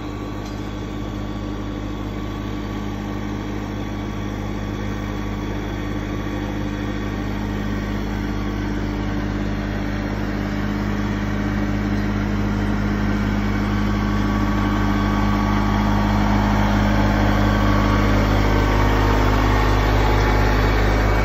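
Compact diesel tractor engine (New Holland Boomer) running at a steady speed, growing louder as the tractor pulls a loaded hay wagon closer.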